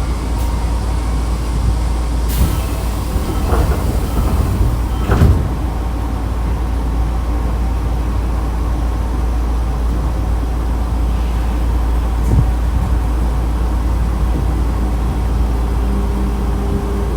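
Nankai 2000-series electric train standing at a station with a steady low equipment hum. A few seconds in comes a hiss with a couple of sharp knocks, typical of the sliding doors closing. Near the end a rising traction-motor whine begins as the train starts to pull away.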